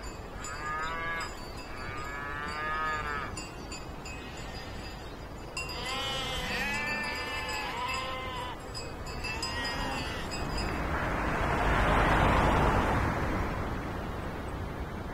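Sheep bleating: about five long, wavering bleats in the first ten seconds, some overlapping. Around twelve seconds in a rushing noise swells and fades, louder than the bleats.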